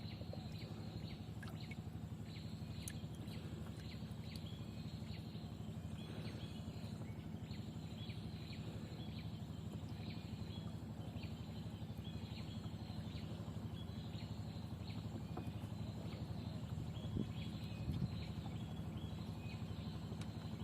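Many short, high chirping animal calls repeating throughout over a steady low hum, with two sharp knocks near the end.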